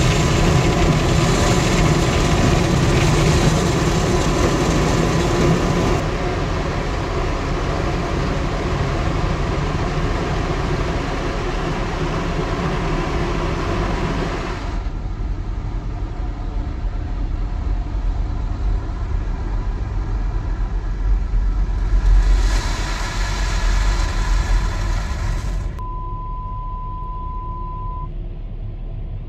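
Automatic car wash water jets spraying over the car, heard from inside the cabin as a loud, even hiss that drops away about halfway through, with a second loud burst a few seconds later. Near the end, the car's parking sensor sounds a steady high beep that switches on and off as the car nears the wash equipment.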